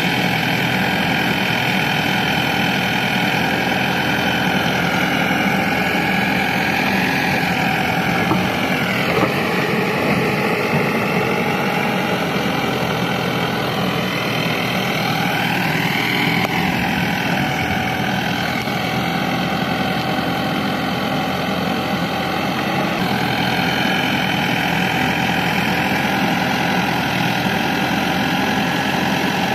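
Heavy diesel engine running steadily, its pitch dropping about seven to nine seconds in, then rising and falling again around fifteen seconds in, as the machine works under load.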